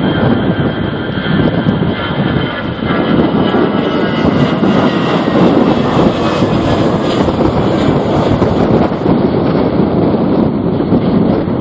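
Airliner's engines passing on approach to land, a loud rushing noise with a whine that swells about halfway through and eases again, over strong wind buffeting the microphone.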